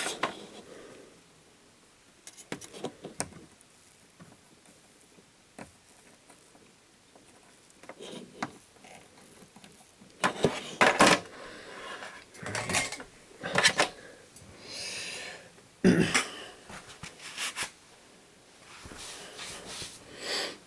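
Small hand tools being handled on a workbench during a soldering repair: scattered clicks and taps and short scraping sounds, separated by quiet gaps and busiest in the second half.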